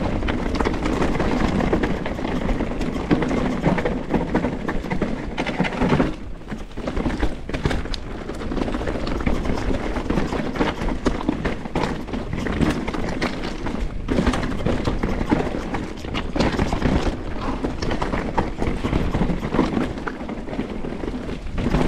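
Canyon Strive enduro mountain bike clattering over rough trail at speed: a dense, continuous run of knocks and rattles from the bike and tyres on dirt and rock, briefly easing about six seconds in.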